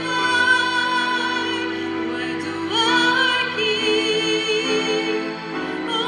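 A young woman singing a slow ballad through a microphone over instrumental accompaniment, holding notes with vibrato and rising to a higher sustained note partway through.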